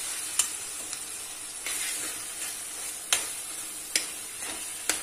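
Ground beef and onion filling sizzling steadily in a stainless steel pan as it is stirred with a spoon, the spoon clicking sharply against the pan about five times.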